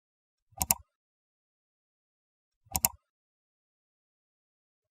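Computer mouse button clicking: two short pairs of sharp clicks, one pair about two seconds after the other, against dead silence.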